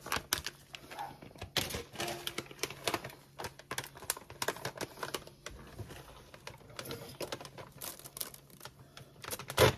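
Plastic food packaging crinkling and rustling as it is handled and opened, with rapid irregular clicks and a louder knock near the end.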